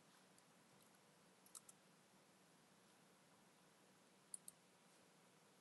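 Faint computer mouse clicks over near silence: a quick pair of clicks about a second and a half in and another pair a little past four seconds.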